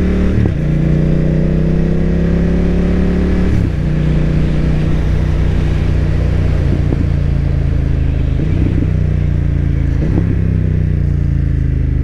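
BMW F900R's parallel-twin engine pulling hard under acceleration. Its pitch rises and drops at two quick upshifts in the first four seconds, then it runs nearly steady in a higher gear.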